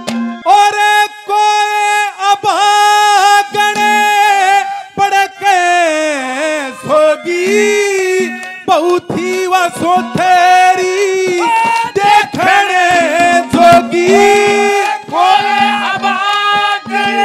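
A male Haryanvi ragni singer singing a high, drawn-out vocal line: long held notes that bend and waver, with short breaks between phrases and no clear words.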